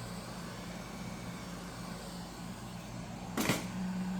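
Hot air rework gun's fan blowing with a steady hum, as it heats the tablet's screen adhesive. About three and a half seconds in there is a short sharp hiss, after which the hum gets louder.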